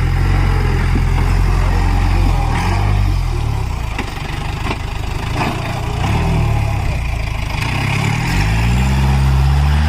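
Off-road jeep engine working hard on a rough, muddy climb, revving up and easing off several times with the pitch rising and falling. A few sharp knocks come about halfway through.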